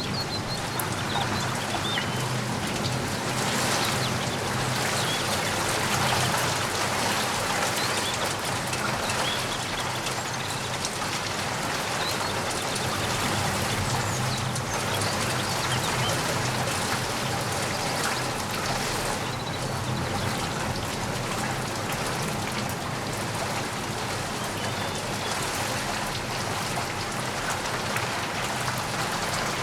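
Steady rain falling, with single drops heard striking close by.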